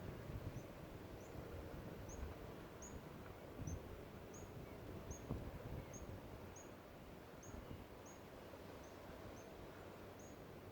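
Faint outdoor background noise with a low rumble, over which a short high chirp repeats steadily about every half second.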